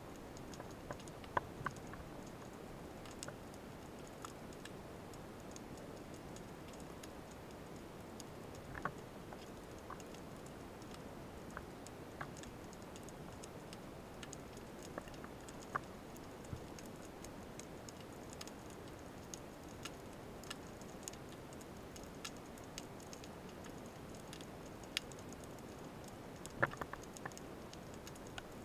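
Underwater ambience picked up by a camera in its housing: a faint steady hiss with scattered sharp clicks and ticks at irregular times, the crackle heard under water along a rocky sea bottom.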